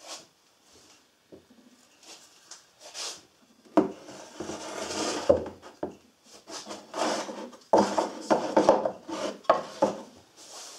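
Wooden boards and blocks being handled on a workbench: plywood and softwood pieces sliding, scraping and knocking against each other and the bench. It starts with a few light knocks, then comes in several louder bursts of scraping and knocking from about four seconds in.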